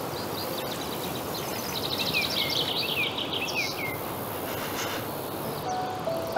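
Outdoor garden ambience: a steady hiss of background noise, with a bird singing a run of quick, repeated chirps from about the first second to the fourth.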